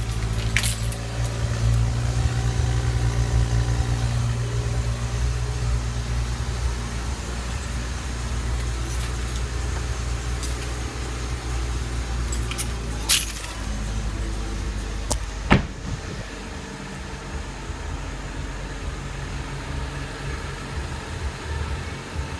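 BMW F10 engine running at a steady idle, with a few sharp clicks about two-thirds of the way through. The owner hears a weird noise from the car, which he says is not coming from the exhaust.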